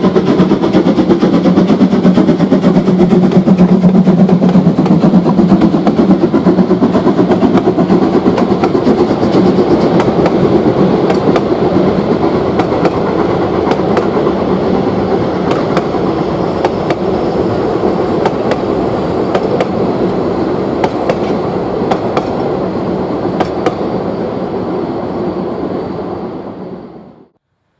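Narrow-gauge steam locomotive 99 1772, an LKM Babelsberg-built tank engine, running past with steam blowing from its cylinders. Its coaches follow with the wheels clicking over the rail joints. The sound fades slowly as the train moves away and cuts off suddenly near the end.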